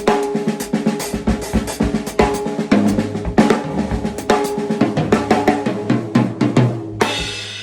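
Drum kit played in a busy groove: bass drum, snare and a hi-hat stepped with the foot. It stops about seven seconds in with a final hit that rings out and fades.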